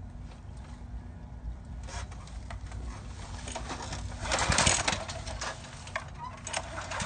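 Pull-start cord of a small gas pressure-washer engine yanked about four seconds in, a brief rasping whir as the engine turns over without catching.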